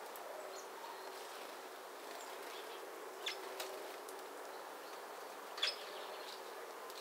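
Great tits at a feeder: faint short chirps over a steady outdoor hiss, with two brief sharp sounds about three and five and a half seconds in, the second the louder.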